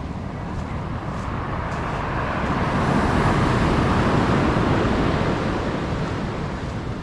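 A road vehicle passing by: its noise swells to a peak about halfway through, then fades away.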